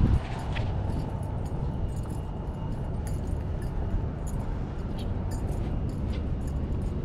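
Outdoor city ambience with a steady low rumble, and light, irregular clicks and jingles from walking with a camera hanging on its strap.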